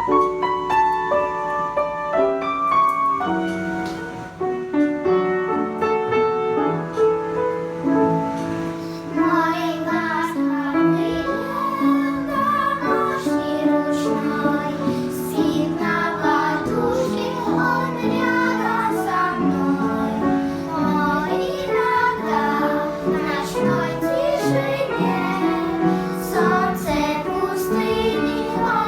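A child singing a song over piano accompaniment, after a piano introduction of about eight seconds.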